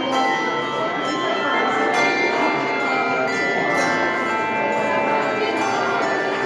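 Handbell choir playing: many hand bells rung in chords, several pitches sounding at once and ringing on as new bells are struck.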